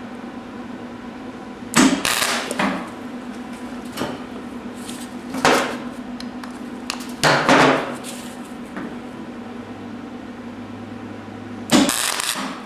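Clarke 125EN flux-core MIG welder laying tack welds on thin sheet-metal patch: four short bursts of arc crackle, the longest about a second, over a steady hum.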